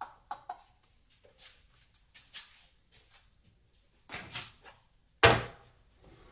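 Short metallic knocks and clinks from tools and engine parts being handled in a car's engine bay, the loudest a single sharp strike a little after five seconds in.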